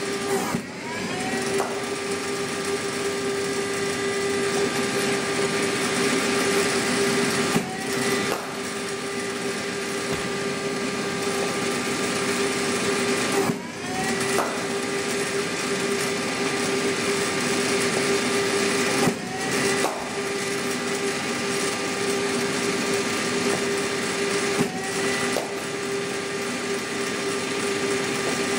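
Cricket bowling machine's spinning wheels running steadily, with a brief dip about every five to six seconds as a ball is fed through, each time winding back up in pitch.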